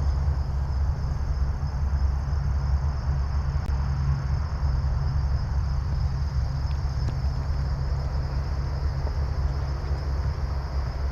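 Wind rumbling on the microphone, with a steady high-pitched insect drone over it.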